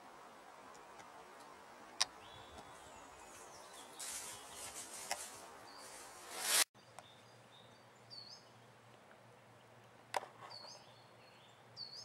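Outdoor woodland ambience with small birds giving a few short high chirps. A rustling noise swells and cuts off abruptly about two-thirds through, and a single sharp click comes about two seconds in.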